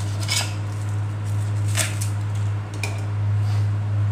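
Three sharp clicks of a knife and metal spoon against a clay mortar as spring onions are cut into it, over a loud steady low hum.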